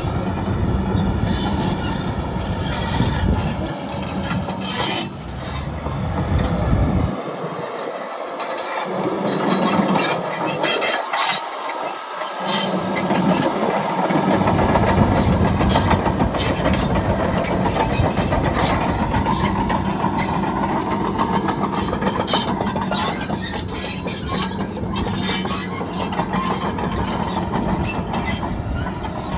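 Caterpillar D6N LGP crawler bulldozer on the move: the diesel engine runs steadily while the steel tracks clank and squeal.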